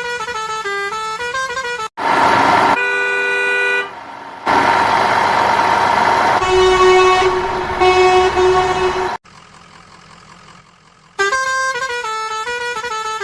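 Vehicle horn honking: one short steady blast, then two longer blasts over a rushing noise, between stretches of a quick electronic jingle of stepping notes.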